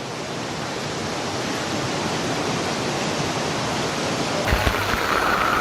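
Steady rush of water, growing slowly louder. About four and a half seconds in, the sound cuts to a different recording with a couple of low thumps and a steady high-pitched band over the noise.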